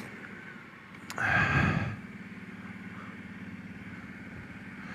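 Kawasaki Brute Force 750 ATV's V-twin engine running steadily at low speed on a tight trail. About a second in there is a brief, louder rush of breathy noise that starts with a click.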